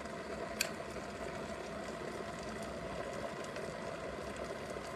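Chefman electric kettle heating water, a steady noise with a single sharp click about half a second in. Its switch has not turned off fully, so the kettle restarts and heats back toward the boil on its own.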